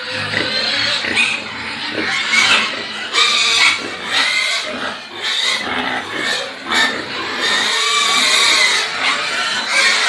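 A litter of newborn piglets squealing and grunting while jostling for the teats of a nursing sow. Many short, overlapping calls rise and fall.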